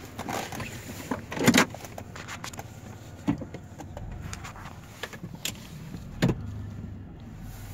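Several sharp clunks and knocks with rustling in between: things being handled and bumped inside a pickup truck's cab.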